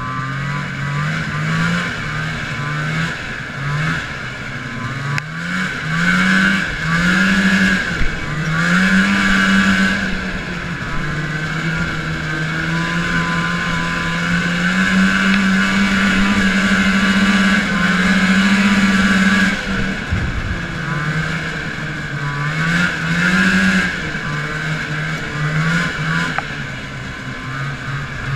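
1980 Arctic Cat Panther 440 fan-cooled two-stroke snowmobile engine under way, its pitch rising and falling in short throttle pulls, then held higher for several seconds before dropping off about twenty seconds in, followed by more short pulls.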